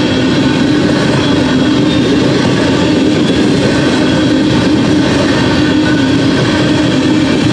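Freight train of open-top hopper cars rolling steadily past at speed: a continuous, even rumble and rattle of the cars' wheels on the rails.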